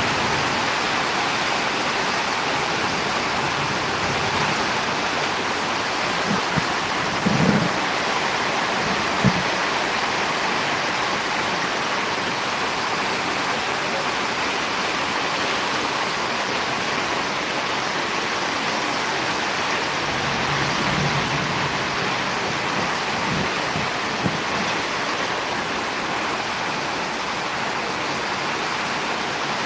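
Steady rush of storm rain. A few brief low thumps come about seven to nine seconds in and again around twenty-one seconds.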